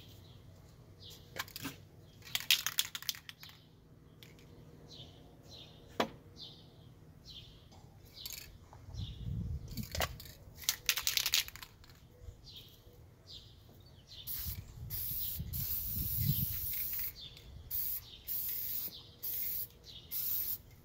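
Aerosol spray-paint can: the mixing ball rattles in quick clusters as the can is shaken, then a long hiss of spraying comes about two-thirds of the way in, followed by several short spray bursts. Small birds chirp repeatedly in the first half.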